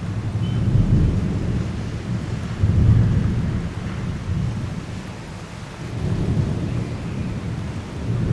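Rolling thunder rumbling in several swells, loudest about one and three seconds in and again around six seconds, over the steady hiss of heavy rain.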